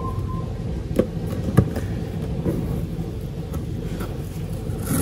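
A steady low rumble, with a few light clicks and rustles as masking tape is unrolled and pressed along a scooter's plastic body panel.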